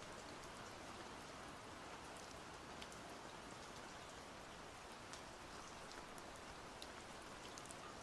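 Faint, steady rain-like hiss with scattered light ticks.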